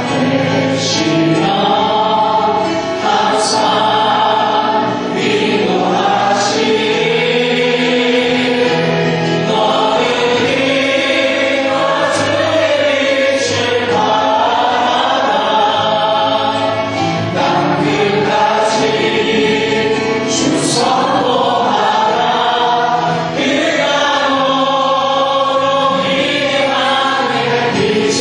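Church praise team of men's and women's voices singing a gospel song together into microphones.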